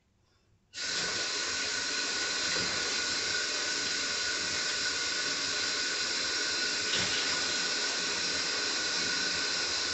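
Kitchen faucet turned on under a second in and running steadily into the sink while pieces of salmon are rinsed under it, a steady rush of water with a faint high note in it.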